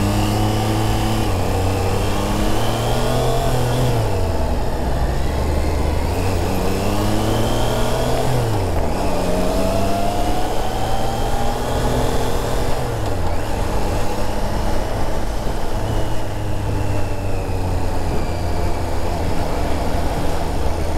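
Triumph Trident 660's inline three-cylinder engine pulling away through the gears: its note climbs, drops at upshifts about four, eight and a half and thirteen seconds in, then runs on more steadily.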